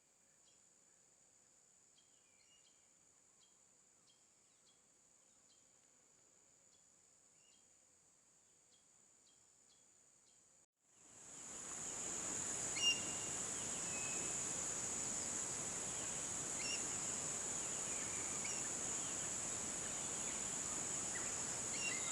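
Steady high-pitched drone of insects with scattered short bird chirps. The sound drops out briefly about ten seconds in and returns much louder.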